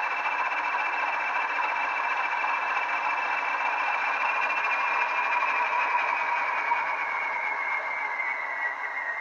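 DCC sound decoder in a pair of Bachmann Class 20 model locomotives, through small slim speakers, playing the Class 20's English Electric diesel engine idling, with a steady high whistle on top. About two-thirds of the way through the whistle begins to fall slowly in pitch.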